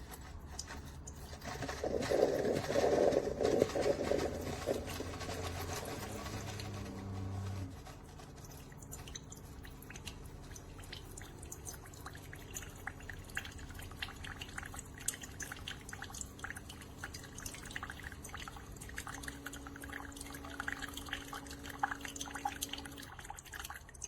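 Keurig K-Mini single-serve coffee maker brewing: its pump runs and hot coffee pours and drips into the mug, loudest for the first several seconds, then settling to a quieter steady hum with crackling drips that stops near the end.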